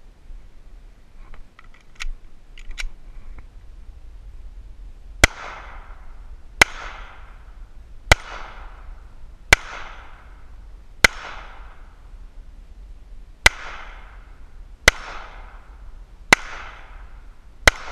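Hi-Point JHP .45 ACP pistol fired nine times at a slow, steady pace, about one shot every second and a half with a slightly longer pause after the fifth, each shot followed by a short fading echo. Two sharp clicks come about two seconds in, before the shooting starts.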